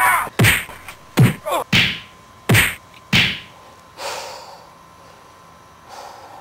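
A quick run of about seven hard whacks, blows landing, some in close pairs, over the first three seconds, then one softer hit about four seconds in.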